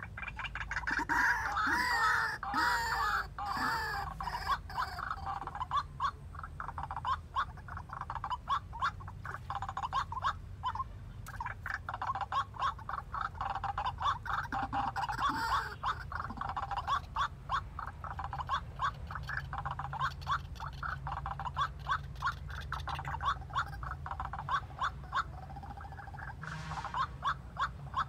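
White-breasted waterhen calling: wavering, harsh calls in the first few seconds, then a long run of quick repeated croaking notes, several a second, as the decoy bird at the trap calls.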